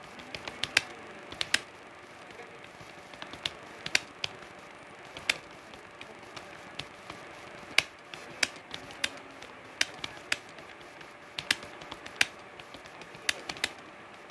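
Keyboard keys being typed, heard as irregular sharp clicks, a few a second, with uneven gaps.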